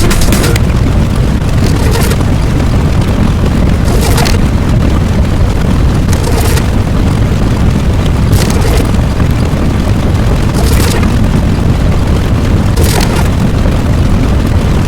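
Loud, continuous deep rumble, like a sustained explosion or eruption sound effect, with a short hissing burst about every two seconds. It cuts off abruptly at the end.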